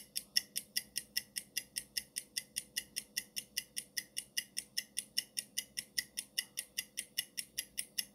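Countdown-timer sound effect: fast, even clock-like ticking, about five ticks a second.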